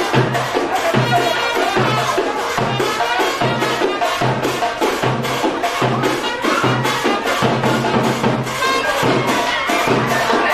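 Loud music with a steady drum beat, a little under two beats a second.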